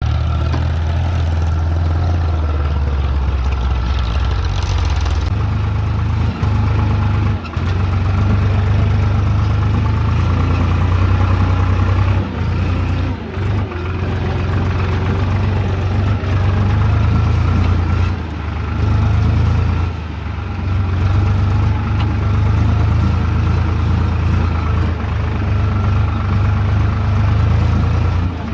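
Eicher 5660 tractor's diesel engine running steadily as it hauls a loaded trolley, a low drone with a few brief dips in loudness.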